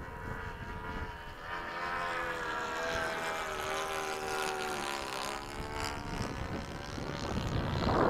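Electric ducted fan of a 90 mm Freewing F-22 RC jet whining as the jet flies past, its pitch sliding down as it goes by. Wind rumbles on the microphone and swells near the end.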